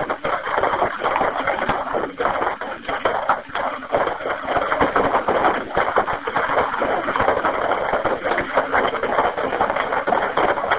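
Dense, irregular crackling and popping heard through a telephone line, the sound of the house fire burning near the caller's phone.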